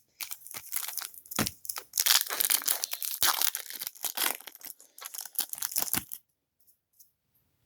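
Foil trading-card pack wrapper crinkling and tearing as it is opened, for about six seconds before it stops, followed by a couple of faint clicks.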